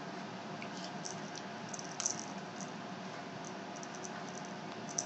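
Small bell on a kitten's collar jingling lightly in scattered soft ticks over a steady hiss, with a sharper clink about two seconds in and another near the end.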